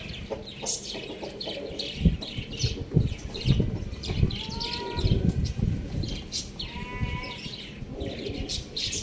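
A domestic hen gives two drawn-out calls, one about four seconds in and one near seven seconds, over quick, continuous chirping of small birds. Scattered low thuds sound throughout.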